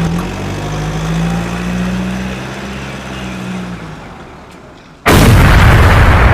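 A truck-like engine drone that runs steadily and then fades out, followed about five seconds in by a sudden, very loud explosion-like blast that keeps going.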